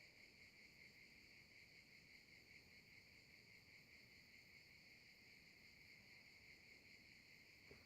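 Faint, steady chorus of insects chirring, high-pitched and continuous.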